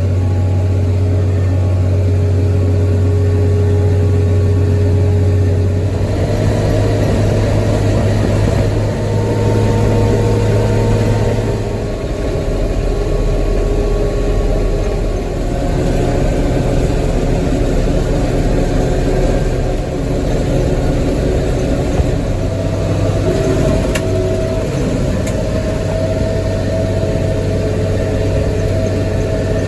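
Tractor engine running steadily while pulling a hay baler, its note shifting a couple of times along the way.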